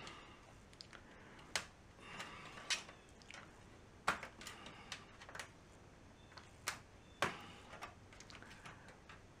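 Irregular sharp clicks and snaps, about a dozen, the loudest near four and seven seconds in, as the frame of a Samsung UN43NU7100F TV's LCD panel is worked loose from its clips by hand.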